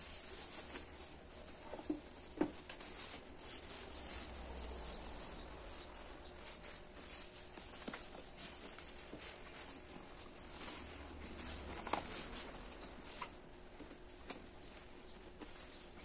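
A plastic bag crinkling and rustling as it is pulled and tucked over a standing fan's grille, with scattered faint clicks and taps; the sharpest come about two seconds in and again near twelve seconds.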